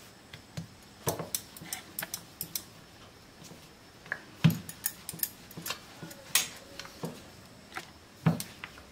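Wooden rolling pin rolling and knocking on a stone rolling board as dough is rolled thin: a scatter of light clicks and taps, with two heavier thumps, one about halfway through and one near the end.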